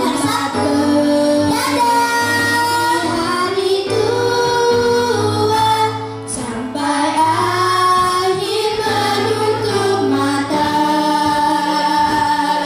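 A child's voice singing held, melodic notes into a microphone over an instrumental backing track with a steady bass line. The sound cuts off suddenly at the end.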